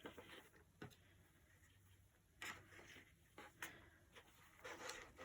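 Near silence: room tone with a few faint, short clicks and rustles of small items being handled.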